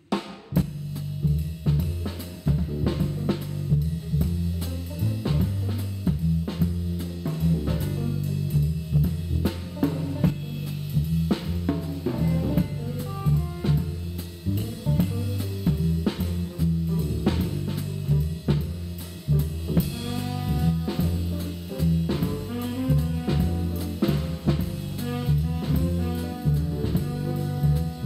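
Background music: an upbeat tune with a drum kit keeping a steady beat over a stepping bass line.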